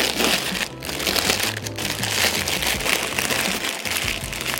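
Clear plastic wrapping crinkling and rustling as a product is unwrapped by hand, over background music.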